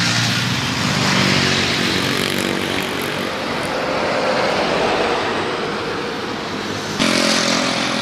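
A heavy truck driving past on the road, its engine and tyre noise swelling and fading. Near the end the sound jumps suddenly to a steadier engine hum.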